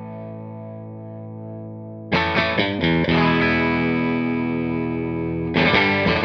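Electric guitar chords played through the Safari Pedals Silver Llama vintage-style amp sim plugin. A chord rings and fades, a new chord is strummed a few times about two seconds in and rings on, and another is struck near the end.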